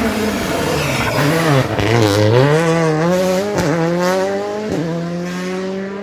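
Rally car engine coming off the throttle as it slows for a corner, then accelerating away with its pitch climbing steadily. Two quick breaks in the note about halfway through and near the end mark upshifts.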